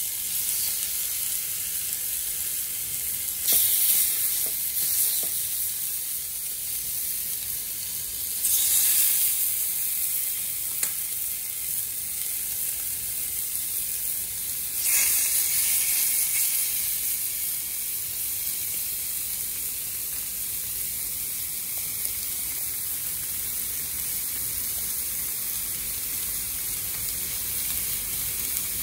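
Marinated chicken sizzling on a hot ridged grill pan over a gas flame, a steady frying hiss. The sizzle surges louder three times, about 4, 9 and 15 seconds in, as fresh raw pieces go onto the pan.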